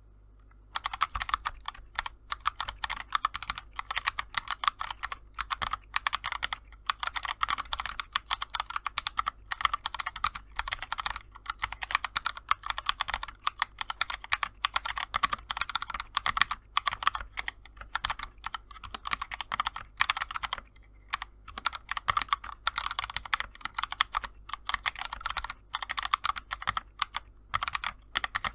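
Fast typing on a mechanical keyboard with unlubed Akko CS Jelly Blue tactile switches: a dense run of keystroke clicks, starting just under a second in, with a short pause about two-thirds of the way through. The spacebar kept sticking on the switch's second tactile bump during the typing.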